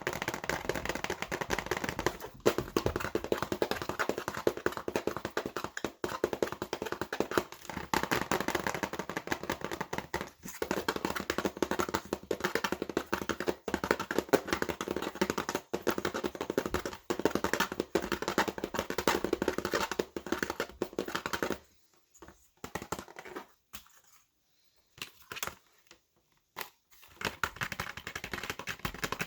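Fast, aggressive typing on a computer keyboard: a dense run of key clicks with a few brief pauses. About three-quarters of the way through it thins to short bursts with gaps, then the rapid typing resumes near the end.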